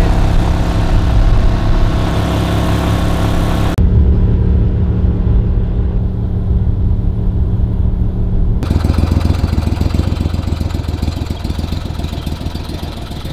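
A boat's outboard motor running at a steady speed, loud and even. Its sound changes abruptly twice, about four seconds in and again about nine seconds in, turning to a faster, pulsing beat near the end.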